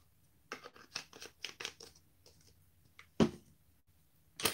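Handling noises on a work table: a quick run of crinkling, rustling strokes lasting about a second and a half, then a sharp knock a little after three seconds in, the loudest sound, and another knock at the very end.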